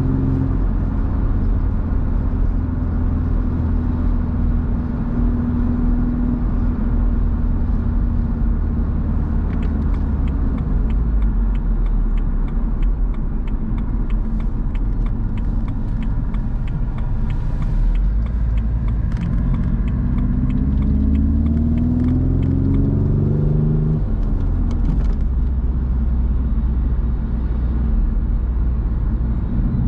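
BMW roadster on the road with the top down, wind and tyre rumble throughout. The engine hums at a steady speed, then pulls up through the revs for several seconds before a gear change drops the pitch near the end.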